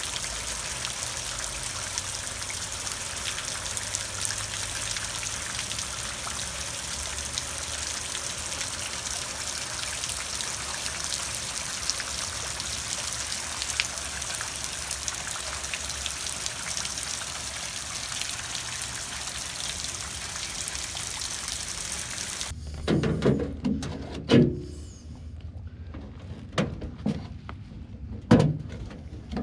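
Floodwater running and trickling along a waterlogged trench beside a house in a steady rush. About three quarters of the way through it cuts off suddenly to a quieter background with a few short knocks and thumps.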